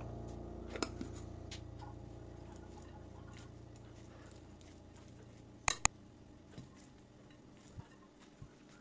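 Metal spoon clinking and scraping against a glass mixing bowl while stirring a chopped-ingredient mix: scattered sharp clicks, the loudest pair about six seconds in. Faint piano music fades out under the first half.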